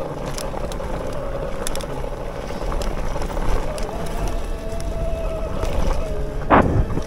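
Bafang BBSHD mid-drive e-bike motor whining steadily under power over a low rumble, with a sharp thump about six and a half seconds in.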